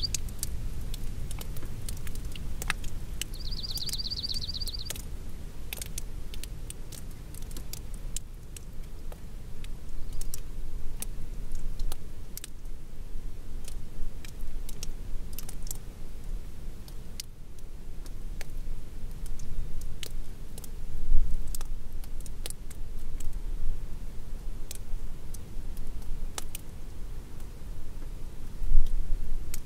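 Outdoor mountain ambience: a low wind rumble with two stronger gusts, one about two-thirds through and one near the end, and scattered ticks of light raindrops. A short high trill sounds once, about three seconds in.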